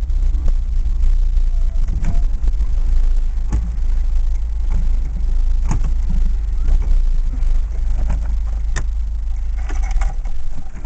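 Interior sound of a LADA 2104 driving slowly: the four-cylinder engine and road noise make a steady low rumble in the cabin, with a few sharp knocks or clicks along the way.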